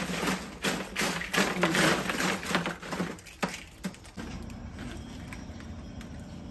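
Dry eggshells crunching and crackling as gloved hands crush and stir them in a plastic wheelbarrow: a dense run of small cracks for about four seconds, then softer.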